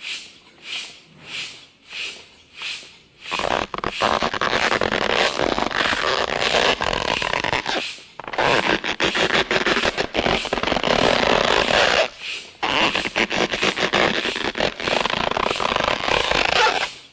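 Air pump puffing rhythmically, about two strokes a second, for the first three seconds. Then three long, loud, crackling fart sound effects follow one another with short breaks between them.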